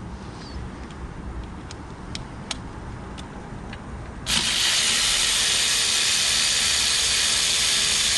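A few faint light clicks, then a loud, steady hiss that starts suddenly about four seconds in and keeps going.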